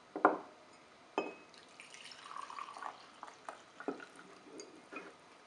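Kitchen handling sounds: two sharp knocks, then clinks and a short run of dripping or pouring liquid, followed by a few lighter taps.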